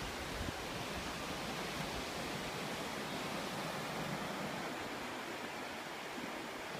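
Ocean surf washing steadily, an even hiss with no single wave standing out.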